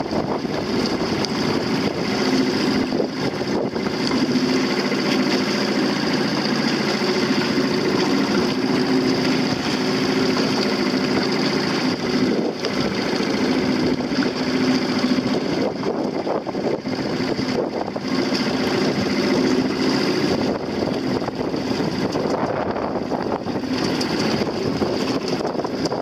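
Engine of a small motorboat running steadily while it tows a dinghy, its steady hum mixed with wind noise on the microphone.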